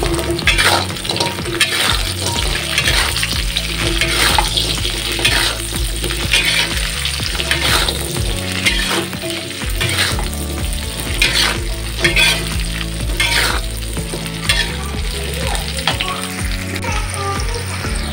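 Tempeh, long beans and red chillies sizzling in a wok while a metal spatula stirs and scrapes them against the pan, about one scrape a second.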